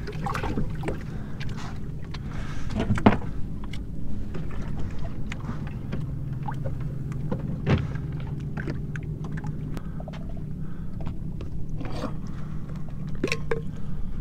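Plastic deck hatch lids on a small fishing boat knocking and clicking as they are opened, shut and latched, a few sharp knocks spread through, the loudest about three and eight seconds in. Under them runs a steady low hum.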